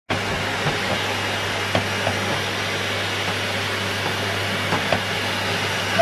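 Numatic Henry canister vacuum cleaner running steadily, a constant motor hum under a hiss of rushing air, with a few faint clicks.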